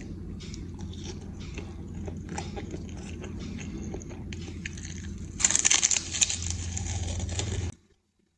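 Close-miked eating: crunching bites and chewing over a steady low hum, with a louder bout of crunching about two-thirds of the way in that stops abruptly near the end.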